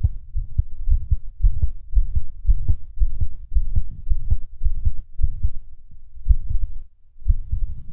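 A human heartbeat, heard as low thumps in an uneven, skipping rhythm, with a short pause about seven seconds in.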